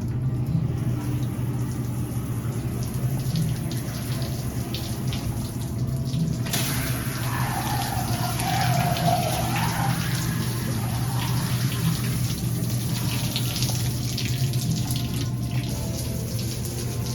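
Running water, a steady hiss over a constant low hum; the hiss turns brighter and louder about six and a half seconds in.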